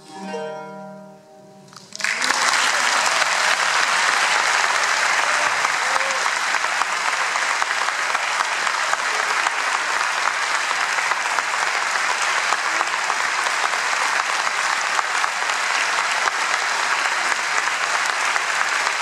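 An eight-course Renaissance lute plays its last plucked notes, which swell and die away. About two seconds in, an audience breaks into steady applause that carries on.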